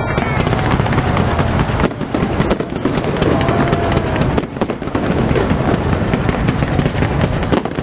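Fireworks crackling and popping in a dense, continuous stream, easing briefly about four and a half seconds in.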